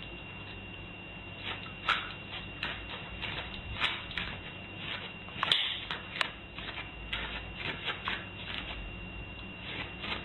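A small dog's paws and claws scratching and tapping on a doormat and tile floor: irregular light scrapes and clicks over a faint steady background with a thin high whine.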